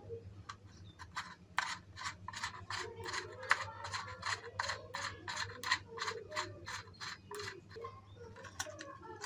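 A metal nut being turned by hand along the threaded shank of a motorcycle mirror bolt, giving a regular run of small scraping clicks, about four a second.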